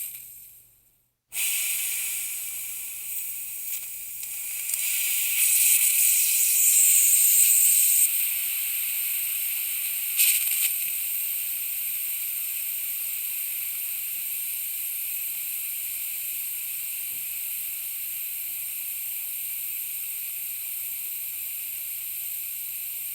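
Compressed air hissing out of a leak, a steady high-pitched hiss. It fades out just after the start and cuts back in abruptly, swells louder for a few seconds, gives a brief spurt, then settles back to a steady hiss.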